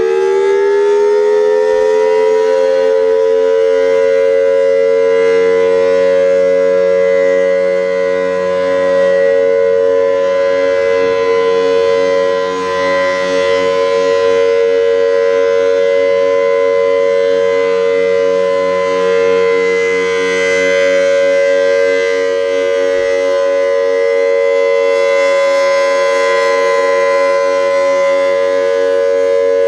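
Outdoor tornado warning siren sounding its scheduled test. It finishes winding up in the first second, then holds a loud, steady two-pitch tone that swells and fades slightly every few seconds.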